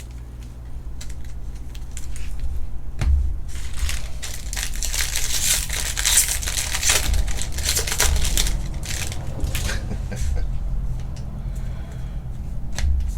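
Trading-card pack wrappers being torn open and crinkled, with cards shuffled and handled; the crinkling is densest in the middle, over a steady low hum.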